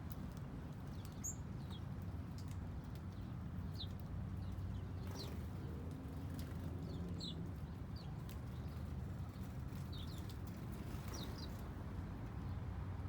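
Small birds giving short, scattered high chirps, a few at a time, over a steady low background rumble.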